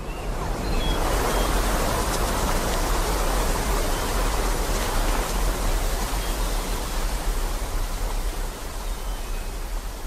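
Steady rushing of a waterfall: a dense, unbroken hiss with a deep rumble underneath.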